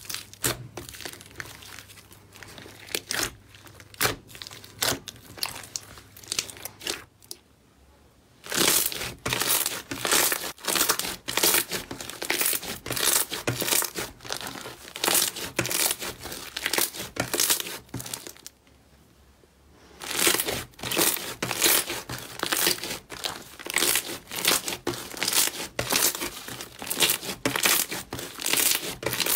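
Thick slime being pressed and kneaded by hand, giving a dense run of sharp crackles and pops. It breaks off twice for a second or two.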